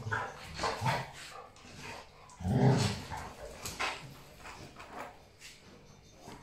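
Two young Dogo Argentinos play-fighting, with dog growls and barks amid scuffling; the loudest, a low-pitched one, comes about two and a half seconds in.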